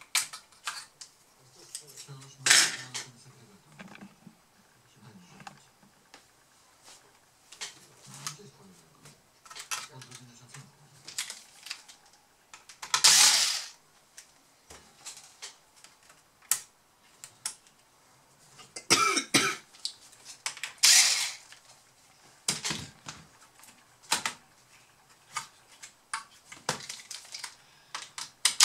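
Parts of a water-damaged laptop being handled and pried apart by hand: scattered small clicks and taps of plastic and metal, with a few short, louder scraping sounds.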